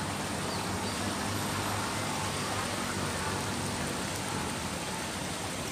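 Steady outdoor background noise: an even hiss with a low hum underneath and no distinct events.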